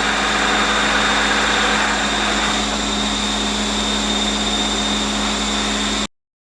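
Bridgeport 1J vertical milling machine running under power: a steady motor hum and whine with a whirring hiss, easing slightly about two and a half seconds in, then cutting off suddenly near the end.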